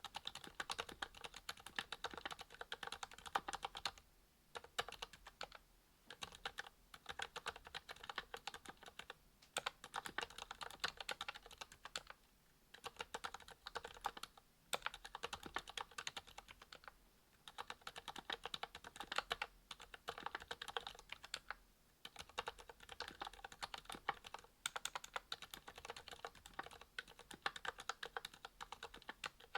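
Typing on a mechanical keyboard fitted with lubed ZealPC Sakurios silent linear switches (62 g) in a brass plate under GMK keycaps. The keystrokes are soft and come in fast runs of clicks, with short breaks every few seconds.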